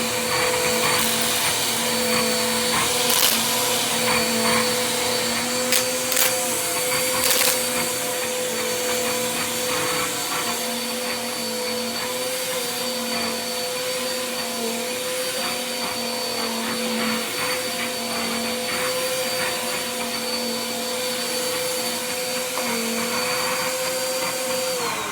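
Vacuum cleaner running steadily with a constant motor whine and airflow noise, with a few sharp clicks and knocks in the first several seconds. Right at the end the whine drops in pitch as the motor is switched off and spins down.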